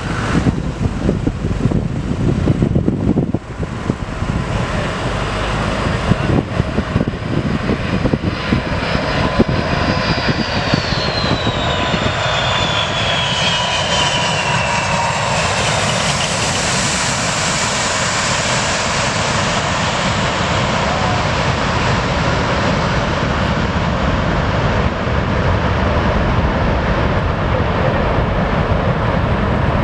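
Boeing 747 jet engines running loud as the airliner passes close by, with a high whine that falls in pitch from about ten to fifteen seconds in.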